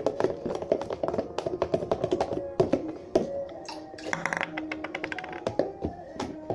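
Music playing, over a fast, uneven run of small sharp clicks and taps, several a second.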